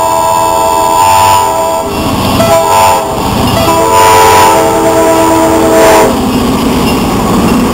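Diesel locomotive's multi-tone air horn blowing the grade-crossing signal: a long blast ending about two seconds in, a short one, then a final long blast that stops about six seconds in as the locomotive reaches the crossing. After that the locomotive's engine and wheels rumble past.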